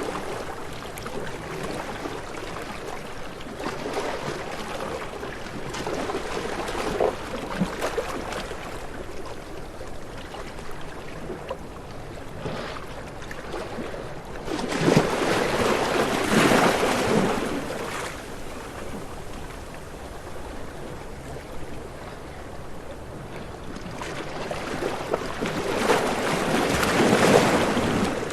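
Ocean waves washing in and breaking, in slow swells; the two biggest come about halfway through and near the end.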